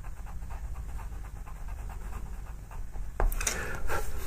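Pastel pencil scratching on paper in short, light strokes, followed about three seconds in by a few louder brushing scuffs.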